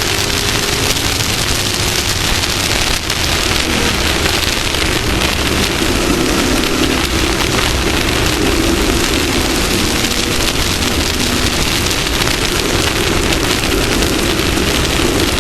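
Off-road race vehicle's engine running steadily at speed, under a loud constant rush of wind and dirt noise from the desert course.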